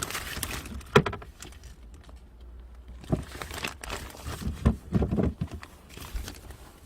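Irregular rustling and crinkling with several knocks, the sharpest about a second in and a cluster of thuds between about three and five and a half seconds.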